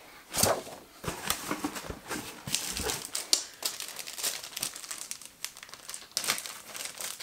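Packaging crinkling and rustling as it is handled during an unboxing, in irregular bursts with some sharp crackles.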